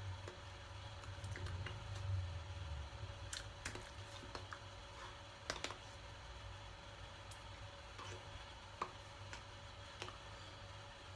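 Faint scattered clicks and light rustles from a person moving their hands and body, a few sharp ones standing out, over a low steady hum that fades out about three seconds in.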